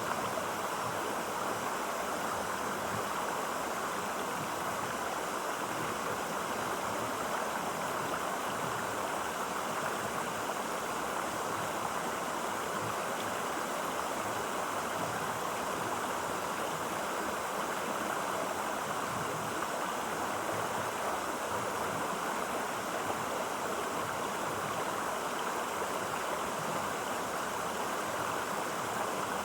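Clear water of a stream flowing steadily, an even, unbroken rush.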